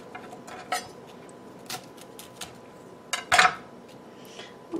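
Chef's knife cutting cauliflower on a wooden cutting board while florets are broken off by hand: a few scattered knocks and cracks, the loudest cluster a little over three seconds in.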